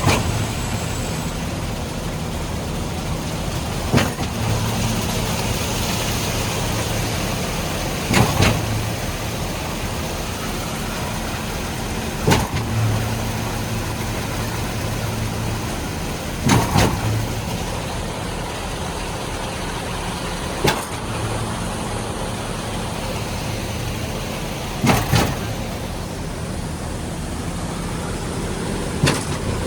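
Concrete mixer truck's diesel engine running steadily, with a sharp knock repeating about every four seconds.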